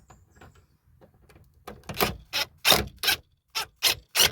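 Socket ratchet tightening a seatbelt anchor bolt: a run of short rasping ratchet strokes, about two a second, starting a little under two seconds in after a few faint clicks.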